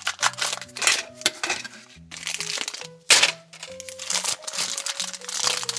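Black plastic blind bag crinkling and crackling in irregular bursts as it is handled and opened, the loudest crackle about three seconds in, over steady background music.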